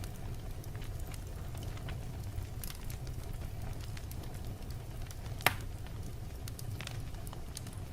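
Wood fire burning in a fireplace: a steady low rumble with scattered crackles, and one loud pop about five and a half seconds in.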